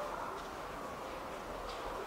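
Indistinct chatter of many people in a large exhibition hall: a steady background murmur with no single voice standing out.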